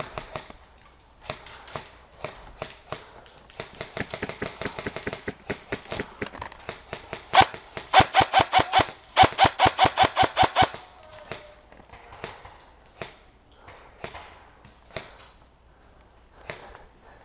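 Airsoft electric rifle, an Ares Amoeba AM-013, firing fast strings of shots close by. Two loud strings of about seven shots a second come about halfway through, with quieter runs of rapid airsoft fire before them and scattered single pops after.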